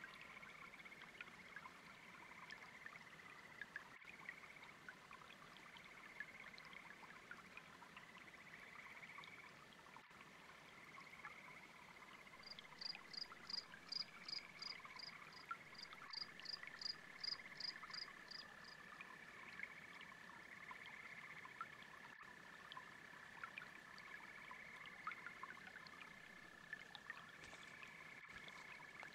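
Faint chorus of frogs and toads calling steadily, with crickets, over a gentle babbling brook. About twelve seconds in, a run of high, evenly spaced chirps, about three a second, lasts for some six seconds.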